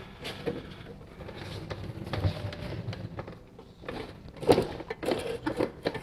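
Irregular knocks, clunks and rattles of parts being handled in a workshop, with the loudest knock about four and a half seconds in and a quick run of clatter after it.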